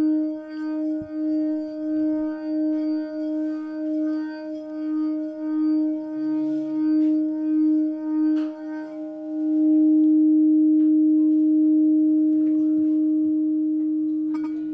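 Quartz crystal singing bowl, tuned to the sacral chakra, sings as its rim is played, giving one steady tone with a rhythmic wavering pulse. About nine seconds in the playing stops and the bowl rings on alone as a purer, louder note that slowly fades, with a short click near the end.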